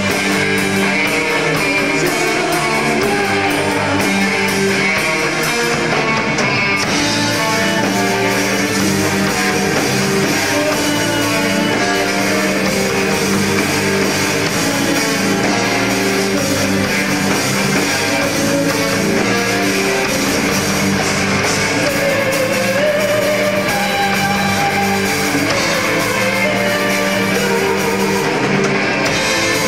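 Live rock band playing at a steady loud level: electric guitar, keyboard and drum kit together.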